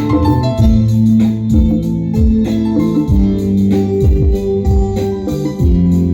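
Electronic keyboard playing held organ-voiced chords over a bass line, with booming electronic drum hits that drop in pitch, through a loud sound system.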